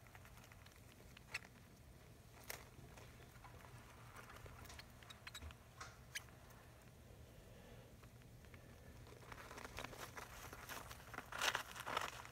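African soft-furred rats stirring in a nest of shredded newspaper: a few scattered small rustles and clicks, then busier crinkling and rustling of the paper near the end.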